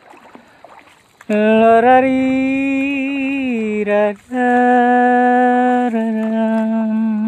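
A voice singing long, drawn-out notes in a chant-like way. After about a second of near quiet, it holds three long notes. The first glides down near its end, and a short break comes about four seconds in.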